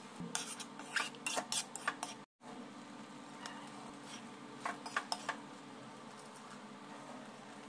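A slotted metal spoon clinking and scraping against a wok, in a quick cluster of clinks during the first two seconds and a few more about five seconds in.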